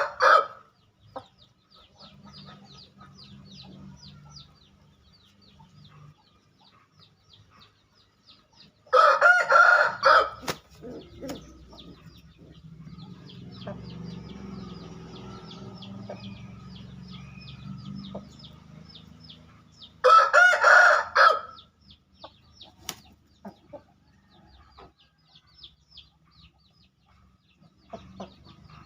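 A rooster crows twice, about eleven seconds apart, each crow about a second and a half long. Between the crows there is a low, quieter murmur and faint ticking.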